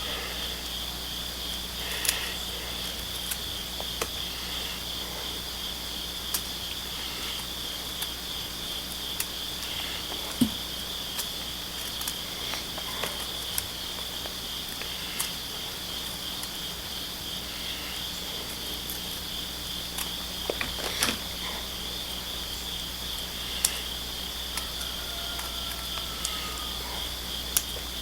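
Steady high-pitched chorus of insects chirping, with scattered faint clicks.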